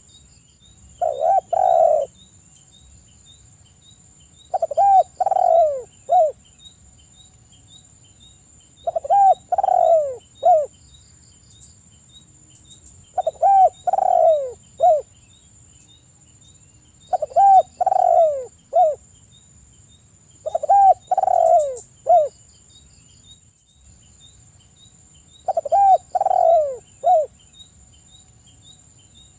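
Spotted dove cooing: phrases of three or four coos, each note falling in pitch, repeated about every four seconds, seven phrases in all.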